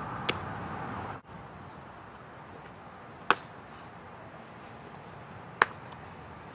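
Sharp pops of a fastpitch softball smacking into a leather catcher's mitt: a fainter one just after the start, then two loud ones about two seconds apart. Steady outdoor hiss underneath.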